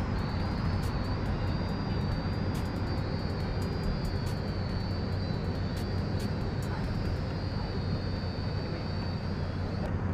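Small quadcopter drone's motors whining in flight, the pitch wavering up and down, cutting out shortly before the end; the pilot takes this for a dead battery. Under it, a steady low hum from the Infiniti G35's V6 engine idling.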